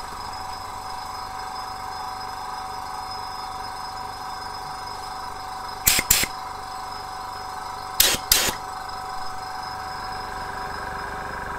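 Air compressor running steadily, pumping air through a spark-plug adapter into a model engine's cylinder to pressure-test the seal of its Viton O-ring piston, building toward 40 psi. Two pairs of short, loud sounds stand out over it about six and eight seconds in.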